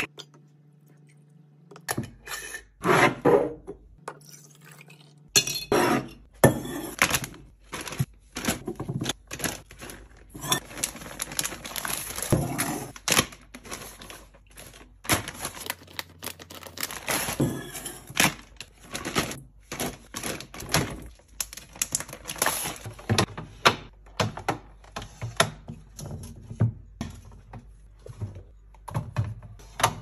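Kitchen restocking handling sounds: a long run of short knocks, clinks and rustles as glass bottles are handled, a plastic zip-lock bag crinkles, and plastic pudding cups are knocked into clear plastic fridge bins.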